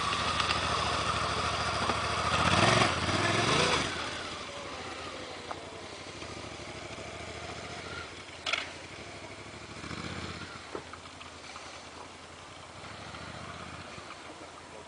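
Twin-cylinder adventure motorcycle engine running off road, revving loudest about two to four seconds in, then quieter and steady. A sharp knock comes about eight and a half seconds in.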